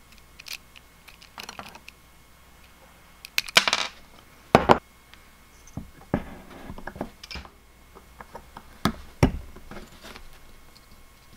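Small metal and wooden parts handled on a workbench: scattered clicks and taps, a short ringing metallic clink about three and a half seconds in, and a sharp knock just after it.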